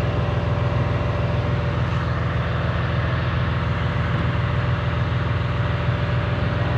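A vehicle engine idling steadily, a low, even running sound.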